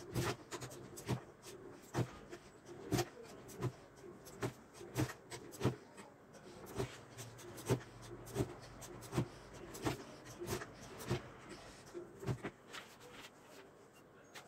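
Rolled yufka dough being chopped into erişte noodles with a hand blade, each stroke cutting through the roll and knocking on the wooden block. The chops come steadily, about one every two-thirds of a second.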